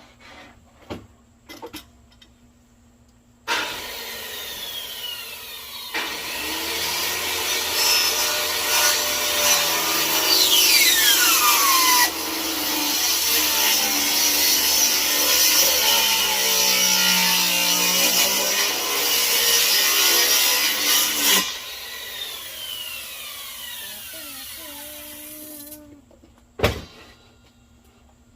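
Power saw cutting through lumber, its whine shifting and falling in pitch as the blade works through the wood; it starts suddenly about three and a half seconds in and stops near the end, followed by a single sharp knock.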